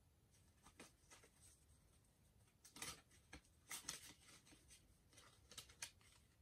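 Faint, scattered rustles and clicks of a Match Attax trading-card pack being opened and its cards handled, with a few sharper ticks about three to four seconds in and again near the end.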